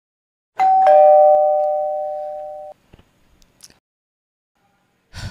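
Two-tone doorbell chime: a high 'ding' followed a quarter-second later by a lower 'dong'. It rings for about two seconds and then cuts off. A few faint clicks and a short thump come near the end.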